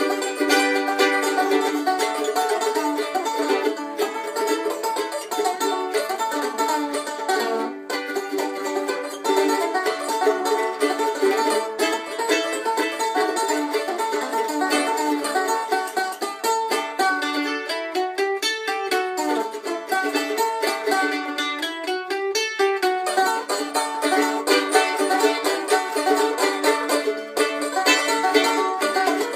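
A mandolin and a banjo playing a tune together, many picked notes in a steady rhythm.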